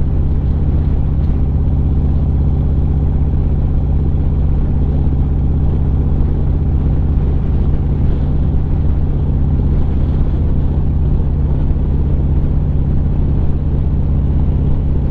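Harley-Davidson Street Glide's V-twin engine running at a steady cruise, a deep even rumble heard from the rider's seat.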